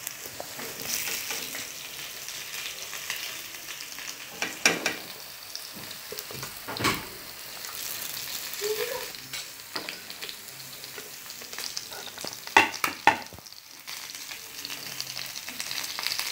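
Fish steaks frying in hot oil in a frying pan, a steady sizzle, broken by a few sharp clatters of the spatula and plate: about four and a half seconds in, around seven seconds, and twice near thirteen seconds.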